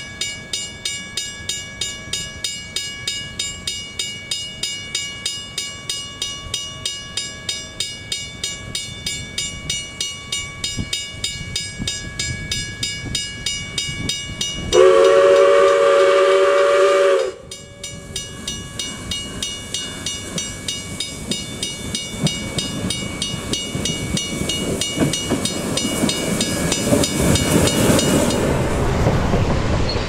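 South Australian Railways 620 class steam locomotive No. 621 'The Duke' working a train, its exhaust beating evenly at about three beats a second. A little past halfway the steam whistle sounds one long blast of about two and a half seconds. Near the end the exhaust and the rumble of the wheels grow louder as the engine comes up close and passes.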